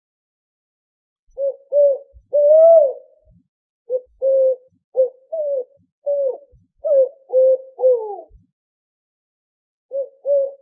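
Owl hooting: groups of short hoots at one pitch, some sliding down at the end, with one longer hoot about two and a half seconds in and brief silences between the groups.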